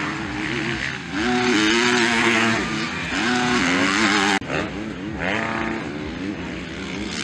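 Motocross bike engines revving hard as bikes race past, the pitch climbing and levelling off again and again as the riders shift up. The sound breaks off sharply for a moment about four seconds in.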